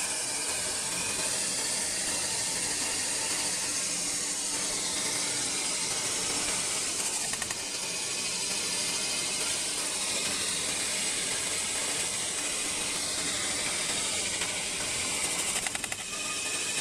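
CNC metal spinning machine forming a sheet-metal workpiece: the spinning metal under the pressing roller makes a steady high hiss, with the machine running underneath.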